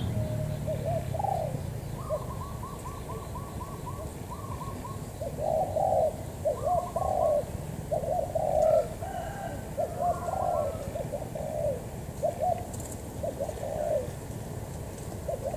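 Spotted doves cooing, with coo phrases repeating again and again and a quick run of higher short notes about two seconds in.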